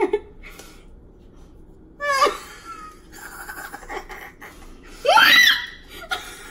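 Nervous, scared laughter from a person dreading eating a cricket, with a short squeal that rises and falls in pitch about five seconds in, the loudest sound.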